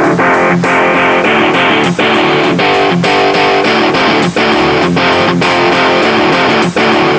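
Background music: strummed guitar-driven track with a steady beat.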